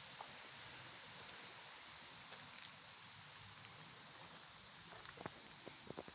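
Steady high-pitched insect chorus, like crickets, with a few sharp footstep-like clicks near the end.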